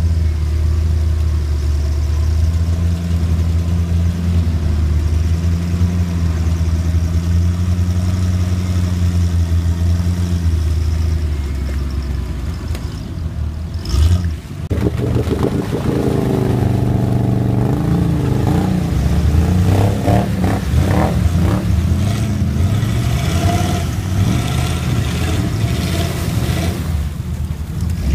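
Engine of a heavily modified Volvo TP21 'Sugga' 4x4 mired in deep mud. It runs at a steady speed at first, then after a short sharp knock about halfway through it revs up and down repeatedly.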